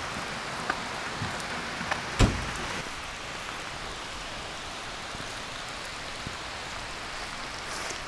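Steady rain falling, with a single dull thump about two seconds in.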